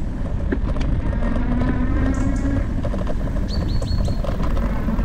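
Steady rumble of riding noise, wind and tyres, picked up by a GoPro on a moving e-bike, with a faint whine between about one and two and a half seconds in. A bird chirps four quick times about three and a half seconds in.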